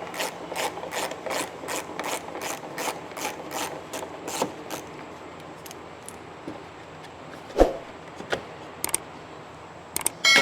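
Hand ratchet wrench clicking steadily, about four clicks a second, as 10 mm bolts are backed out. The clicking stops after about four and a half seconds, followed by a few light taps and a single loud knock about seven and a half seconds in.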